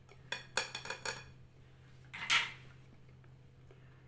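Metal kitchen utensils clinking against a mixing bowl: a quick run of ringing clinks in the first second, then a short scraping swish about two seconds in.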